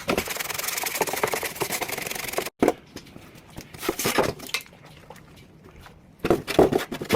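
Fast back-and-forth scrubbing on a part of a window air conditioner being cleaned of mould. The scrubbing cuts off abruptly about two and a half seconds in and is followed by quieter, intermittent rubbing and handling noises.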